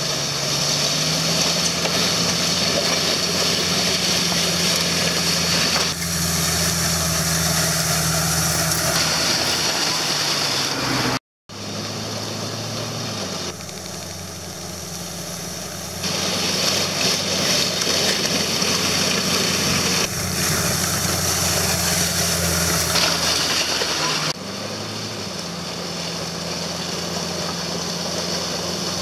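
Pickup truck engine running steadily at low speed as it pushes a front-mounted FrontRunner grader through the mud and gravel of a dirt road, with a steady hiss over it. The sound cuts out for a moment about eleven seconds in, and its loudness steps up and down a few times.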